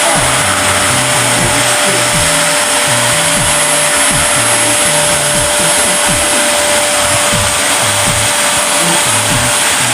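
Upright household vacuum cleaner running steadily, its motor giving a constant rushing hiss with a steady high whine. Under it, music with a bass line and a thumping beat.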